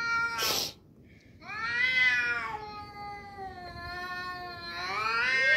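Two domestic cats yowling at each other in a fight standoff. A drawn-out yowl ends just after the start, followed by a short hiss. Then comes a long, wavering yowl from about a second and a half in that rises in pitch near the end.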